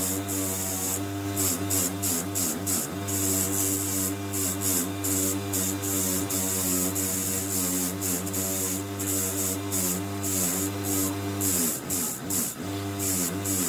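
Wire wheel on a bench-mounted electric motor scrubbing rust off a steel pipe wrench: a harsh scratchy hiss that rises and falls in irregular strokes as the wrench is pressed in and moved, over the motor's steady hum, which sags briefly in pitch under the heavier presses.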